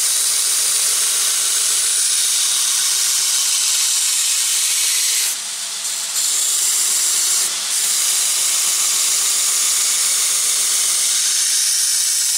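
Belt grinder's abrasive belt grinding the steel of knife blanks to profile them, a loud steady hiss. It eases twice, about five seconds in and again near seven and a half seconds, as the steel leaves the belt for a moment.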